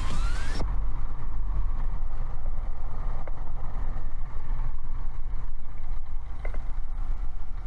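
Cessna 140's piston engine running at low power as the plane taxis, a steady low rumble. Background music cuts off about half a second in.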